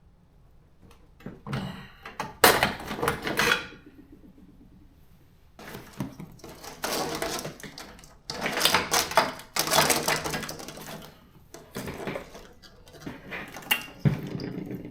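Clinking and rattling of hand tools and small metal and plastic parts being handled, in three spells of a few seconds each.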